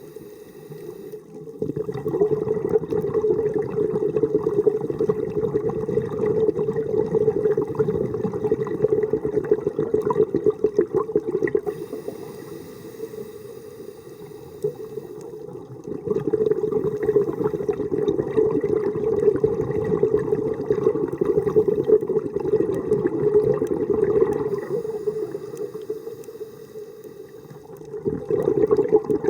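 Scuba diver's regulator breathing underwater: exhaled bubbles come in long noisy surges, one about a second in, another about 16 s in and a third near the end, with quieter inhalations between.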